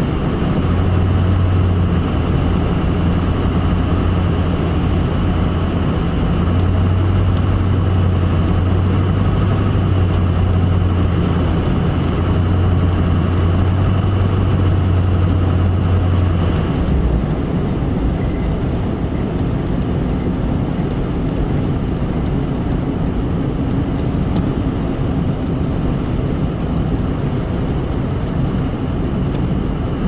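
Pickup truck cabin noise while driving on a snow-covered highway: a steady drone of engine and tyres, with a low hum that drops away a little over halfway through.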